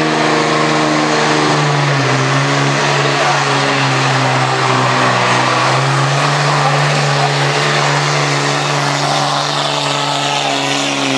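Dodge pickup's Cummins inline-six turbo-diesel running flat out under heavy load as it drags a pulling sled. The engine note is loud and steady and sags slightly about two seconds in as the load builds.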